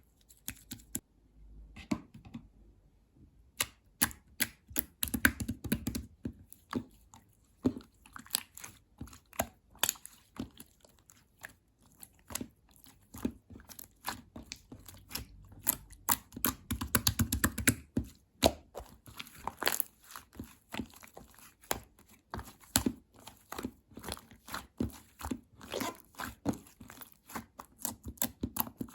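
Mint and blue slime squished and stretched by hand, giving many irregular sharp pops and clicks, with fuller squelching stretches around 5 and 17 seconds in.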